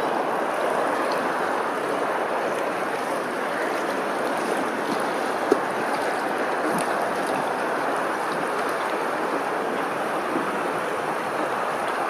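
Steady rushing wash of choppy open water lapping, with one brief click about five and a half seconds in.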